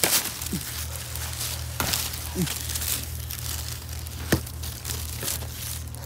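Leaves and stems of a turkey berry bush rustling and crackling as it is handled to pick the berries, with three sharp snaps. A steady low hum runs underneath.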